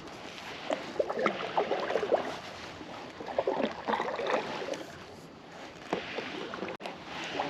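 Water splashing and lapping against a kayak hull in a few short bursts.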